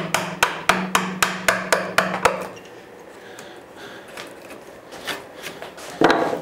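A 1/2 inch chisel struck with a mallet in quick light blows, about four a second, chopping waste out of a dado across a board; the blows stop after a little over two seconds. Softer scraping of wood chips follows, then a single knock near the end.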